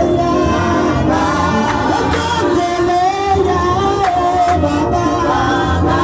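A congregation singing a gospel song together, with a few sharp hand claps.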